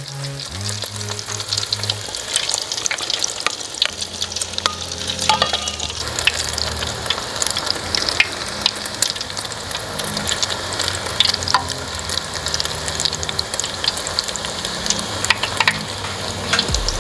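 An egg foo young patty deep-frying in a pot of hot oil, crackling and sizzling steadily with many small pops, while a spatula works the patty in the oil.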